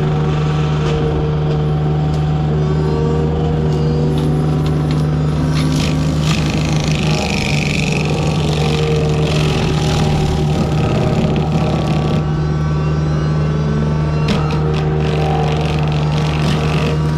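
Forestry mulcher's diesel engine running steadily at high revs, with the mulching head chewing into wood, which adds bursts of clatter and hiss in the middle and again a little later.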